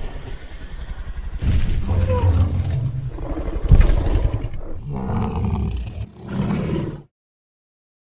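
Carnotaurus roar sound effect: a long, rough roar in several surges, loudest near the middle, ending in a shorter last surge that cuts off abruptly about seven seconds in.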